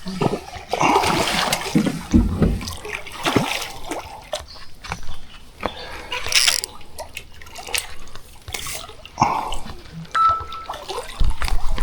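Irregular water splashing and trickling at the surface beside a boat as a hooked barramundi is played in, short splashes coming every second or so.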